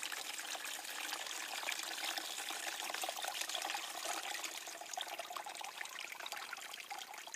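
Battery acid pouring out of the open cells of a tipped-up lead-acid car battery and splashing into a plastic tub, a steady trickling stream that eases off toward the end. The old electrolyte is being drained so the battery can be refilled.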